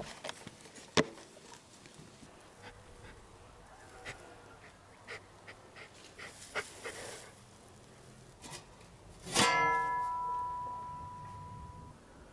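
Scattered light clicks and knocks, then a sharp strike about nine seconds in that rings out with a clear note and fades over about two seconds.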